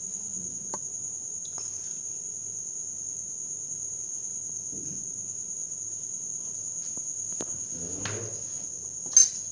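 A steady high-pitched background tone, with a few faint clicks and one sharp click near the end.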